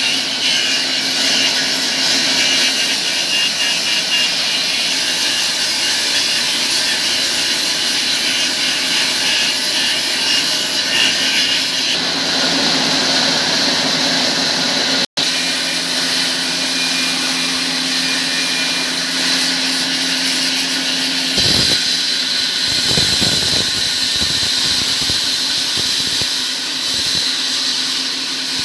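Sawmill machinery running steadily with a constant hum and a hissing whine, cutting out for an instant about halfway through; a few low knocks come in during the latter part.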